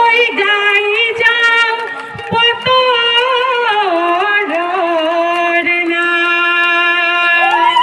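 Women singing an Assamese Jeng Bihu folk song: one woman's voice holds long notes with wavering ornaments, and a second voice runs alongside.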